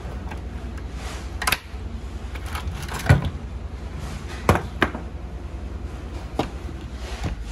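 A handful of sharp clicks and knocks, irregularly spaced, from parts and tools being handled on a workbench, the loudest about three seconds in, over a steady low hum.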